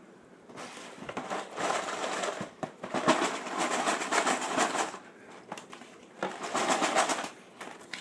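Cardboard Lego box being worked open with a tool, a scratchy scraping and tearing of cardboard in two spells with a short pause about five seconds in.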